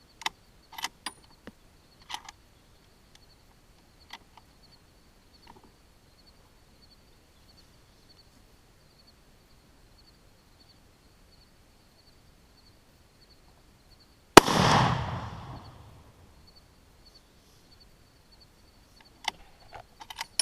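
A single rifle shot from a Savage Axis .270 bolt-action rifle about fourteen seconds in: a sharp crack followed by an echo that rolls away over about a second and a half. A few faint clicks come before and after it.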